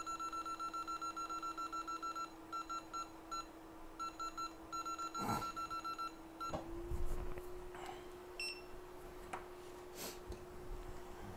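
Rapid electronic beeping from microsoldering rework equipment, about eight beeps a second, first in a long run and then in short groups that stop about six and a half seconds in, as when a setting button is held and pressed repeatedly. A steady low hum runs underneath and rises slightly in pitch as the beeping stops, with a few light knocks.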